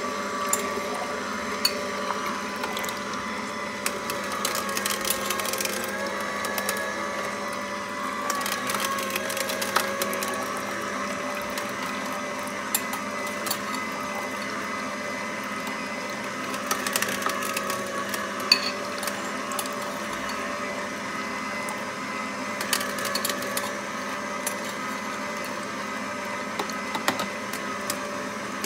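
Endever Sigma 95 slow auger juicer running steadily while pressing pomegranate: an even motor-and-gear hum with scattered sharp clicks.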